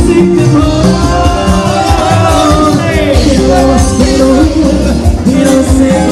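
Latin dance music with a sung vocal over a steady beat and bass.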